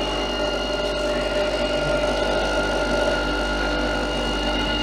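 Philips Senseo Up coffee pad machine's pump running on its first use, filling the empty boiler as water runs through: a steady mechanical drone, quite a lot of noise.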